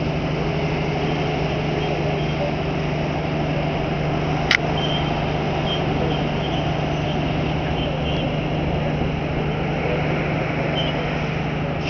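Steady drone of a trailer tug's engine hauling a semi-trailer, with a constant low hum. One sharp click about four and a half seconds in.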